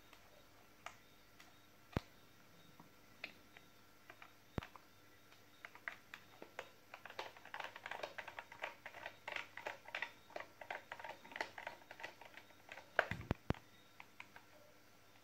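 Phillips screwdriver turning out the screws of a plastic 18V NiCd cordless-drill battery pack case: faint scattered clicks, then a long run of small rapid clicks and scrapes, with two sharper knocks near the end.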